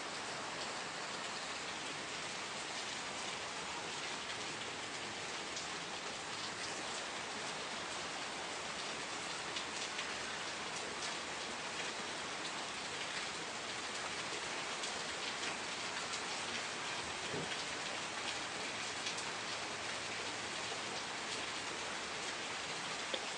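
Steady rain falling on a surface, a dense even hiss with many small drop patters.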